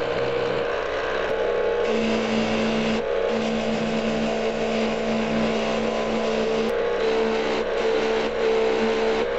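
Electric motor running a wire brush wheel, with cast-iron and steel parts of an antique hand-cranked grinder pressed against it to scrub them clean. A steady motor hum sits under a scratchy hiss of wire on metal, and the hum wavers as parts are pressed on and moved about.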